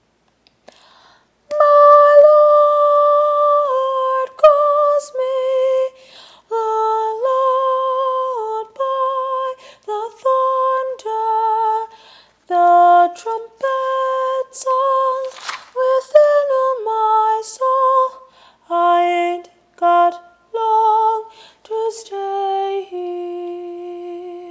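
A woman singing unaccompanied without words: a slow melody of long, steady held notes that step up and down, broken into short phrases with brief breaths between them.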